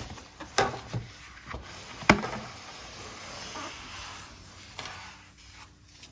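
Cardboard box and packing being handled as an espresso machine is worked out of it: a few sharp knocks, the loudest about two seconds in, then a few seconds of sliding, scraping rustle.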